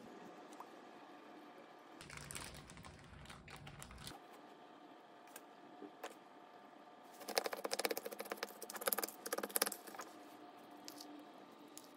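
Quiet food-prep handling: light taps and clicks of toppings being laid on a tortilla on a wooden cutting board. From about seven to ten seconds in comes a run of rapid clicking and scraping as a spoon scoops chopped cheese out of a glass bowl.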